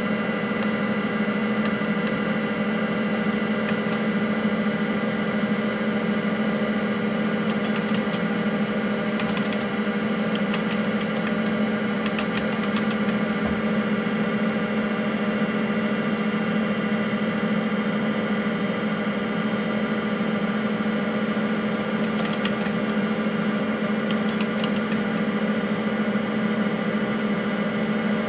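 IBM PC AT running: the steady whir and hum of the system unit with its Seagate ST-4038 MFM hard drive spinning, holding several steady tones. Short runs of small clicks come twice, about a third of the way in and again toward the end.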